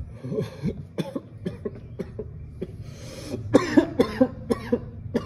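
A man coughing in a run of short, sharp coughs after inhaling from a disposable vape pen, the coughs growing louder and more voiced about three and a half seconds in.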